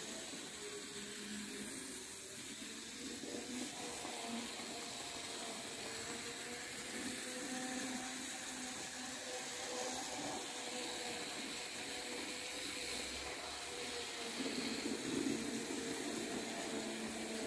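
A roughly 40-year-old N-scale model electric locomotive running on its track with passenger coaches: a steady whir from its small motor and wheels, with a faint whine that wavers slightly in pitch.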